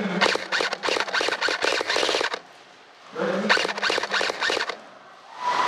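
G&P PTS Masada airsoft electric gun firing two bursts of rapid shots, the first about two seconds long and the second shorter, with a brief pause between them.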